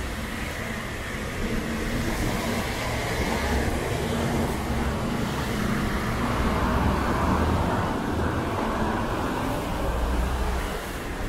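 Street traffic on a rain-wet avenue: a steady hiss of tyres on the wet road over a low rumble of engines.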